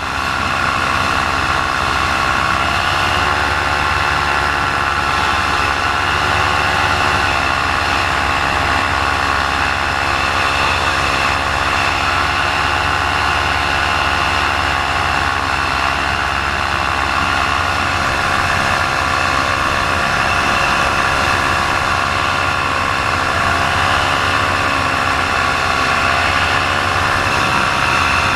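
Paramotor's two-stroke engine running steadily in flight, its pitch wavering slightly a few times. The engine is down on power, losing RPM shortly before it quits.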